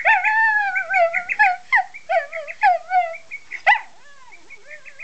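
Dog howling along to an alarm clock's electronic tune. A long wavering howl breaks into shorter yips, with a sharp yelp about halfway through, then a quieter falling whine, over short high beeping notes of the melody.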